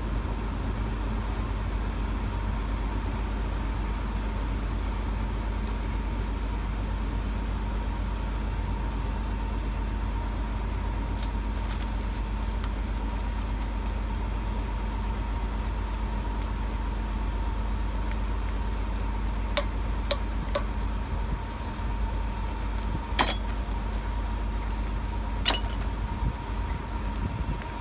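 An engine idling steadily close by, with a constant hum. In the last third, a few sharp metallic clicks and clinks from hand tools on a steel lid.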